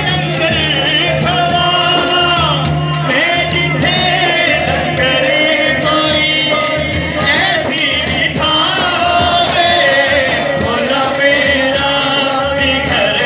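Male voices singing a Punjabi devotional naat (kalam) into microphones, a lead voice with others joining in, amplified over a PA.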